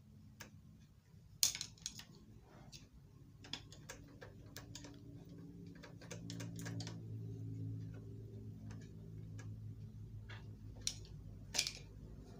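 Scattered sharp metallic clicks and taps of hand tools working a bolt on a sewing machine's reverse-stitch (breaker) mechanism, loosening it and taking the part out. A low hum swells underneath in the middle and fades near the end.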